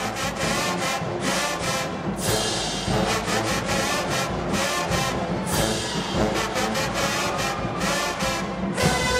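Marching band playing loudly: sousaphones, trumpets and trombones together, with sharp drum hits punctuating the music.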